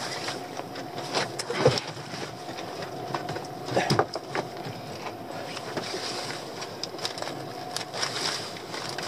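Knocks and clatters as a lobster pot is emptied by hand on a small boat, over wind and a steady hum. The loudest knocks come about a second and a half in and around four seconds in.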